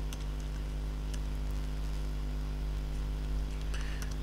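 Steady low electrical mains hum, with a few faint computer keyboard key clicks as a word is typed.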